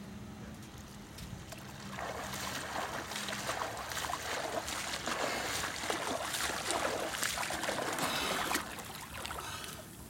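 Water splashing from a snorkeler swimming front crawl at the surface, arm strokes slapping and churning the water in an irregular run. It starts about two seconds in and stops shortly before the end.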